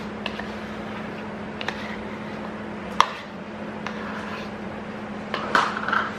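Light clinks of a small ceramic bowl and a metal spoon against a stainless steel mixing bowl as melted butter and egg are poured in, the sharpest click about three seconds in. Near the end a spoon scrapes and clinks against the bowl, over a steady low hum.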